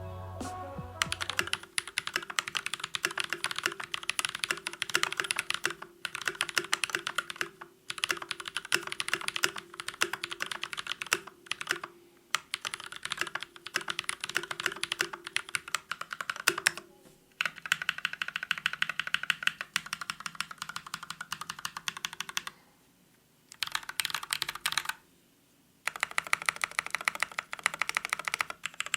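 Fast typing on a mechanical keyboard: dense runs of key clacks, stopping for short pauses several times and resuming.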